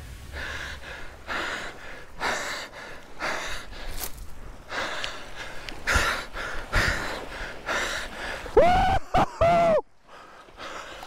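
A man breathing hard and gasping about once a second, out of breath from fighting a large fish on rod and reel. Near the end come three short wordless cries, the loudest sounds here.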